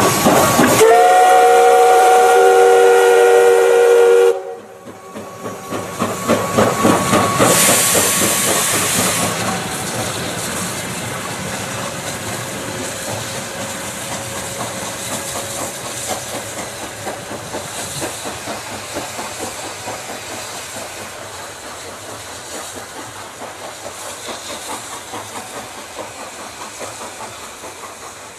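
Steam locomotive whistle sounding a chord of several notes for about three seconds and cutting off sharply, then the locomotive's exhaust chuffing in a steady rhythm, with a burst of steam hiss a few seconds later, growing gradually fainter.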